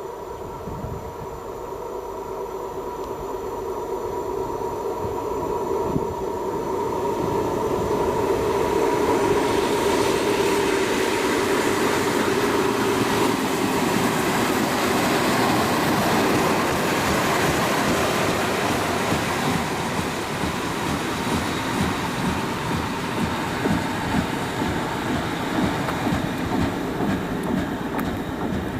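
DB class 216 diesel-hydraulic locomotive approaching with a steady engine tone, growing louder over about ten seconds. It then passes close by with its train, the wheels clicking rhythmically over the rail joints.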